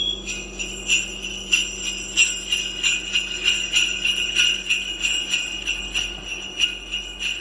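Jingle bells shaken continuously, a bright jangling ring with irregular accents about twice a second.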